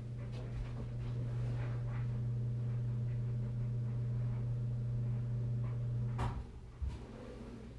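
A steady low hum that cuts off with a sharp click about six seconds in, followed by a softer knock.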